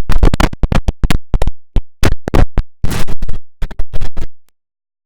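IBM OS/2 Warp 3 shutdown sound heavily processed with stacked audio effects, chopped into rapid stuttering fragments that sound like record scratching. It cuts out for about half a second near the end, then starts again.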